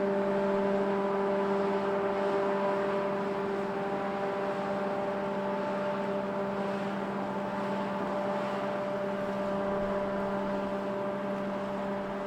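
Steady machinery whir from the Defiance-Ashtabula tug-barge: a constant low hum with a few higher overtones over a hiss. The uploader could not place it and thought it might come from her thrusters or her self-unloading system.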